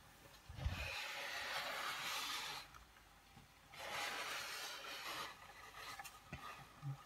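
Steam hissing from a small toy steam engine in two bursts of about two seconds each, with a short low knock just before the first.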